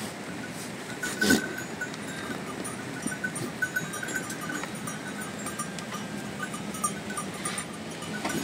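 A flock of sheep and goats, with small bells on the animals tinkling on and off and one short bleat about a second in, over a steady hiss.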